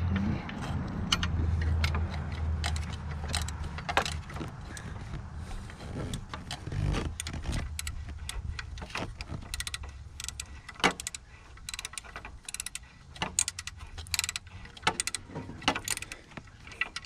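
Hand wrench clicking and clinking against a nut and the surrounding metal while a nut on the exhaust back pressure sensor tube is tightened. The clicks are irregular and come more often in the second half, over a low rumble in the first few seconds.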